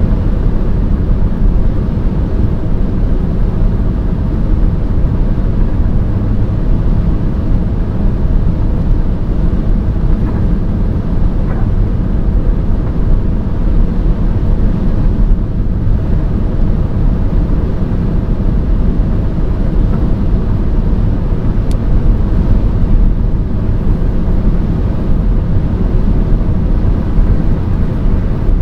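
Steady rumble of a car driving: road and engine noise, heavy in the low end and unchanging throughout.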